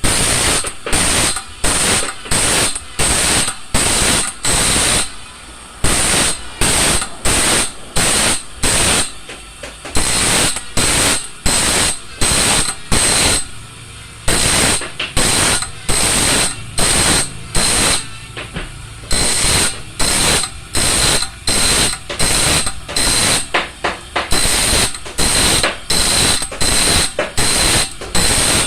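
Rhythmic rasping strokes of a hand tool worked back and forth on metal, about two to three strokes a second, with brief pauses near the middle.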